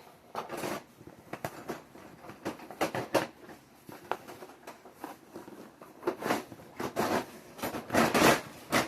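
Parts and packaging of a mini greenhouse kit being handled and pulled out of the box: irregular rustling and scraping, louder in the last few seconds.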